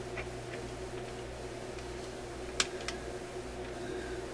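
Small pliers clicking as they work a fine lead wire at a record player's tone-arm cartridge: a few faint ticks, then a sharp click about two and a half seconds in and a softer one just after. A steady hum runs underneath.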